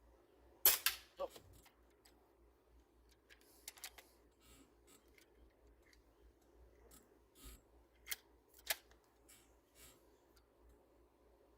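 A CO2-powered break-open single-shot airsoft pistol fires with a sharp pop about a second in, and a shorter clack follows half a second later. Several light mechanical clicks and two sharper clacks near the end follow as the gun is handled: the break-open action being worked and the hammer cocked.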